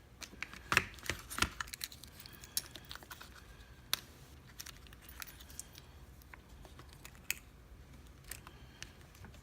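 Small metallic clicks and rattles of a lock and its key being handled and worked. The clicks come thick in the first two seconds, then sparser and scattered.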